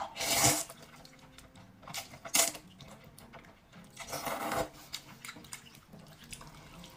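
A person slurping wide, sauce-coated cold noodles (liangpi) from chopsticks: three short wet slurps, one at the start, one about two and a half seconds in and a longer one about four seconds in.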